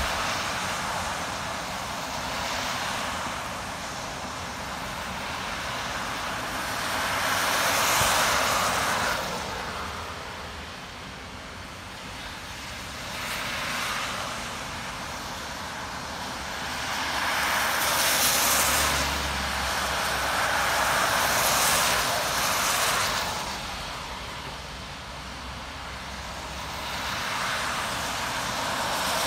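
Cars passing one after another on a rain-soaked highway, each a swell of tyre hiss and spray off the wet road that rises and fades over a few seconds. Several pass in turn.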